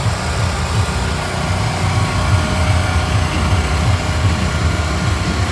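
Food truck generators running with a steady, loud, low engine drone.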